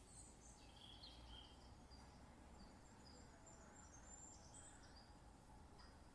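Faint, scattered high bird chirps and short calls, played back from a bird documentary, over a low steady hum.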